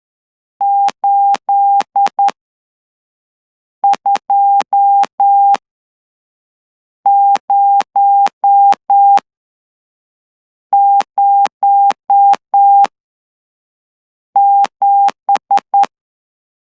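Morse code (CW) sidetone hand-sent on a straight key at about 12 words per minute: a steady mid-pitched beep keyed on and off in dots and dashes. It comes in five short groups about three and a half seconds apart, each of about five elements, the pattern of practice numerals or letters sent one at a time.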